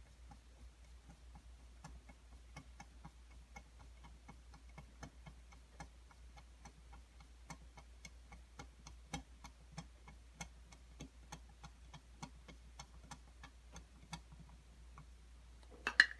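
A large screwdriver turning the base screw of an airsoft gas blowback magazine into an HPA adapter, making a steady run of faint clicks, about two to three a second. A louder metallic clatter comes right at the end.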